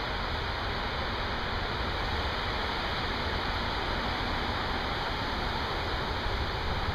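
Heavy thunderstorm rain falling, a steady, even rush of noise.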